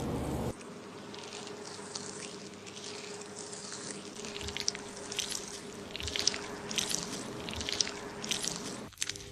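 Running water cuts off about half a second in. After that, fingers rub and scrub a lathered scalp and hair in many short, soft squishing and scratching strokes.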